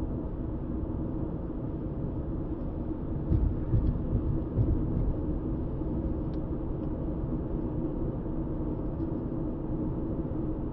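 Steady road and engine noise of a car cruising at speed, a low rumble with a faint hum, and a few louder low thumps about three to five seconds in.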